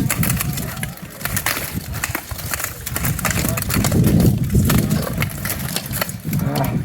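Steel armour clattering and knocking with many short, sharp metallic hits from an armoured bout, over the murmur of people's voices.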